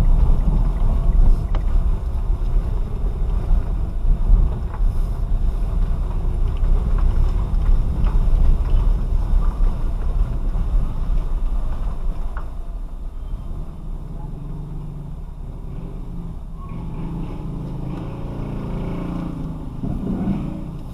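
Car on the move, heard from inside the cabin: steady road and engine rumble that eases about twelve seconds in, leaving a quieter, steadier engine hum.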